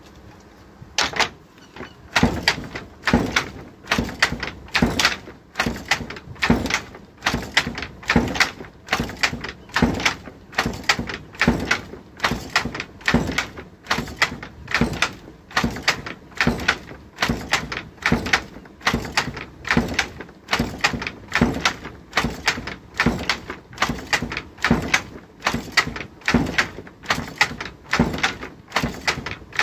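Fly-shuttle handloom weaving: the shuttle is flung across the shed by jerks of the picking cord and the wooden batten beats each weft pick home, giving a steady rhythm of sharp wooden clacks, a couple a second, that begins about two seconds in.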